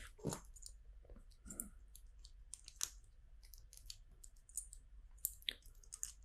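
Faint, irregular light clicks of small plastic LEGO pieces being handled and pressed together.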